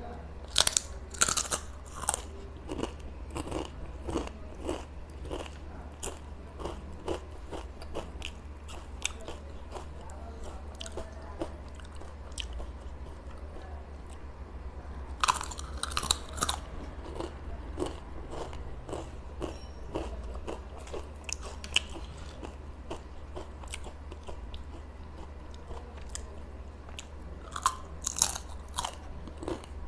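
Close-miked bites into crisp ridged Uncle Chips potato chips: loud crunching bites about a second in, around the middle and near the end, with crunchy chewing between them. A low steady hum lies underneath.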